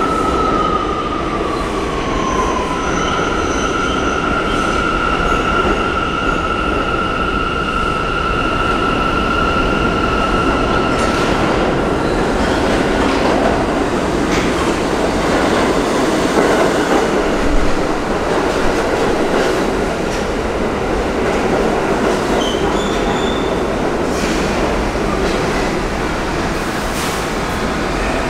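New York City subway G train arriving in the station: a steady high wheel squeal over the train's rumble for the first ten seconds or so, then the rumble and clatter of the cars rolling along the platform.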